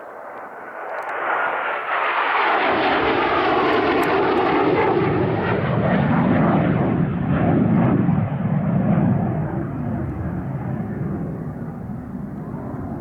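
Panavia Tornado GR.4's twin RB199 turbofan engines as the jet flies past: the noise builds over the first two seconds, a whine falls in pitch as it goes by, then a heavy low rumble as it flies away.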